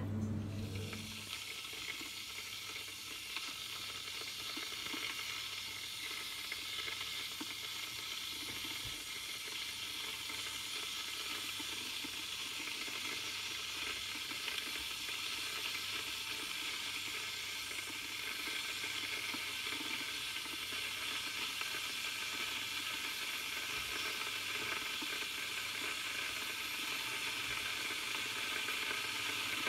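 Electric kettle heating water: a steady hiss that grows slowly louder as the water nears the boil.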